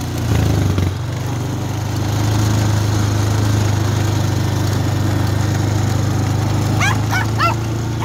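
ATV (4-wheeler) engine running steadily while driven across a field, picking up briefly about half a second in. A dog gives a few short, high yips near the end.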